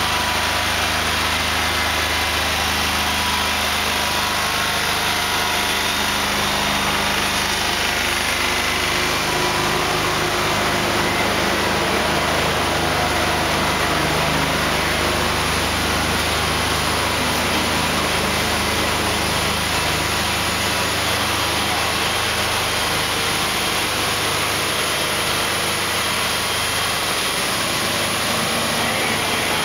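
Diesel engine of a heavy-haulage truck running steadily at low speed while towing a multi-axle trailer: a continuous low hum with a hiss over it and no changes in pace.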